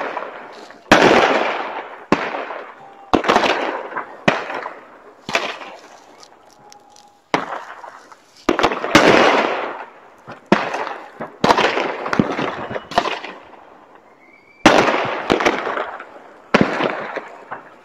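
Fireworks exploding: about a dozen sharp bangs at irregular intervals, one every second or two, each trailing off in a long echoing rumble.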